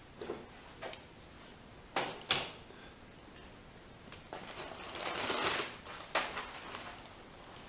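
Packing paper and tissue rustling and crinkling as it is pulled out of a cardboard box. A few short, sharp clicks and taps come in the first couple of seconds, and a longer rustle comes about five seconds in.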